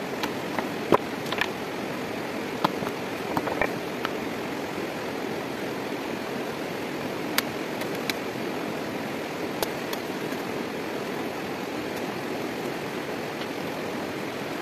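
Stones clicking and knocking, with wet clay patted on by hand, as a stone fireplace is plastered with mud, over a steady rushing background. The knocks come thickest in the first few seconds, then a few more near the middle.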